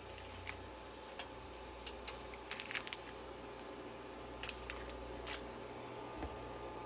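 Scattered light clicks and taps of kitchen handling over a steady low hum, with a small cluster of quick taps a couple of seconds in and another a little past the middle.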